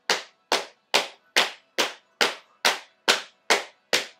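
Hands slapping on thighs as body percussion, in a steady even beat of a little over two slaps a second, each slap ringing out briefly.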